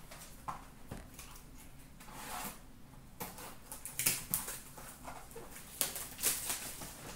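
Hands handling cardboard trading-card boxes: a small box set down on a glass counter, then a larger box lifted out of a plastic bin. Scattered taps, scrapes and rustles, the loudest about four and six seconds in.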